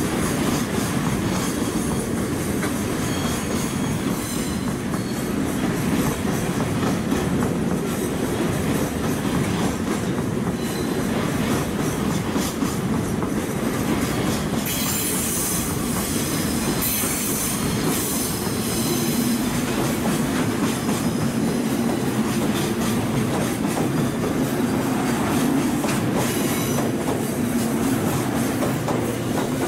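JR Kyushu 783 series limited express electric train standing at the platform with its onboard equipment running steadily. A low steady tone comes in past the middle, and near the end the train starts to pull away.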